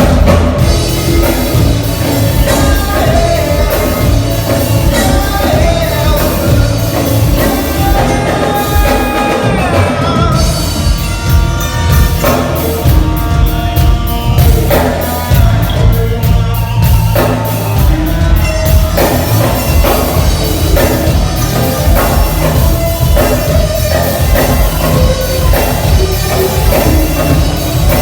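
A live band playing rock music on stage with a drum kit, during a sound check.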